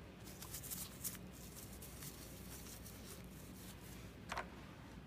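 Tissue wipe wetted with isopropyl alcohol rubbed briskly over a plastic gripper finger, a quick run of soft scratchy rustles for about the first second, then one more brief rustle near the end.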